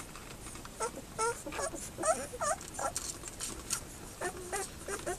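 Eight-day-old puppies squeaking and whimpering while they nurse: a quick run of short, high squeaks that bend up and down, starting about a second in, with faint wet suckling ticks among them.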